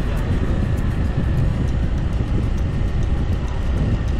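Motor scooter riding along: steady engine and road noise under a heavy, unbroken rumble of wind on the microphone.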